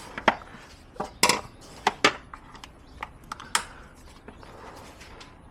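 Sharp plastic clicks and knocks from the factory intake's clips and retainers being worked loose by hand, about eight in quick irregular succession, most of them in the first four seconds.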